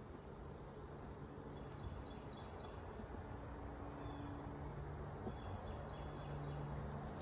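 Honeybees buzzing around an open hive: low steady hums that swell and fade as bees fly close. Faint bird chirps sound in a few short runs in the background.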